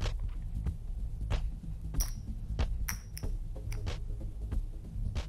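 Low, throbbing background music with a steady bass pulse, over sharp clicks of poker chips being handled at the table; two of the clicks, about two and three seconds in, ring briefly like chips clinking together.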